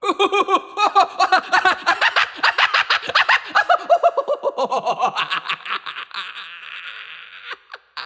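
Hearty human laughter in quick repeated bursts that starts abruptly, drops in pitch about halfway through, and fades away over the last couple of seconds.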